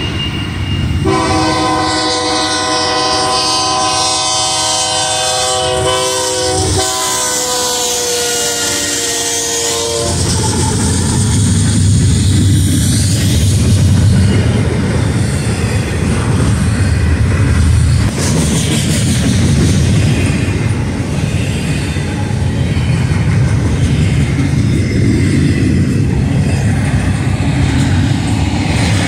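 BNSF diesel freight locomotive's air horn sounding a loud multi-note chord for the grade crossing, dropping slightly in pitch as it passes and cutting off about ten seconds in. After it, the steady rumble and wheel clatter of double-stack intermodal cars rolling past.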